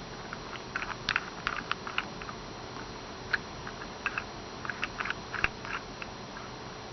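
Light, irregular wooden clicks and taps from the pieces of a wooden puzzle box being jiggled and turned by hand, trying to line a piece up so it will slide down; the clicks come in two flurries.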